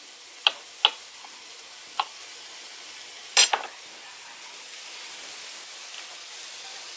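Ground Italian sausage sizzling steadily as it browns in a frying pan, with four short clicks and scrapes of a utensil stirring it; the strongest comes a little over three seconds in.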